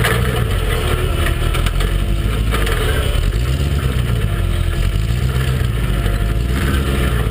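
Rock buggy engine running at crawling speed, its note rising and falling slowly as the throttle is worked over rocks.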